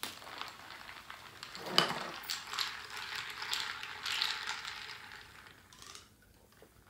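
A straw working in a glass of Pepsi over ice: ice rattling and clicking in the glass and a crackly slurping hiss. It dies away about six seconds in.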